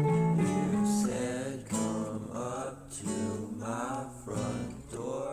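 Background music led by an acoustic guitar, with notes changing in a melody.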